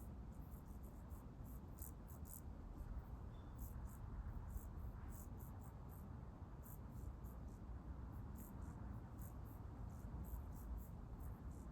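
Faint insects chirping: short high-pitched pulses, several a second and irregular, over a low steady background rumble.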